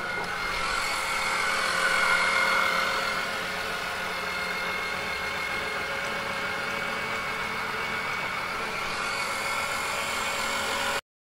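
Small 12-volt electric oil-extraction pump running steadily, sucking warm engine oil up from the sump through the dipstick tube. It cuts off suddenly near the end.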